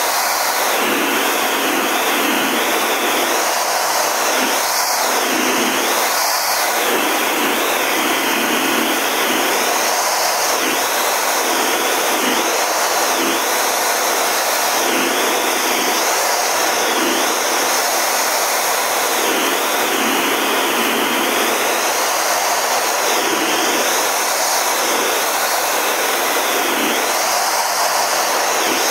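Steady jet roar and rushing air inside the cockpit of a CT-114 Tutor jet in flight, from its single J85 turbojet, with a higher whine above it that wavers gently up and down.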